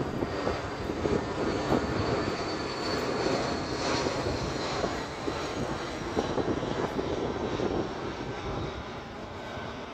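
Airbus A320 jet airliner flying low overhead with its landing gear down, its twin turbofan engines giving a steady rushing noise with a faint high whine that slides slightly down in pitch. The sound fades slowly near the end as the aircraft moves away.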